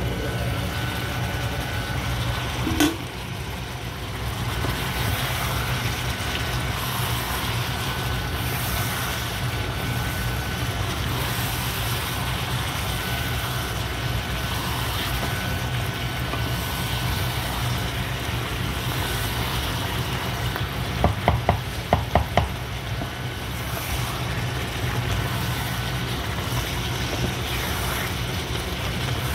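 Stew simmering and sizzling in a pan over a steady low hum. There is one sharp knock about three seconds in as the glass lid is lifted off, and a quick run of clicks about 21 seconds in.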